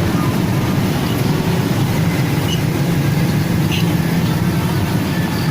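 Steady low rumble of motor vehicles running, with no break or change.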